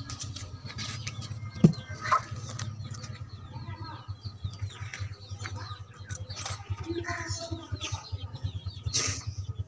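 Small birds chirping in quick repeated notes, over rustling and a couple of knocks about two seconds in as an earthen clay pot is handled and set down and cloth is pulled out of it.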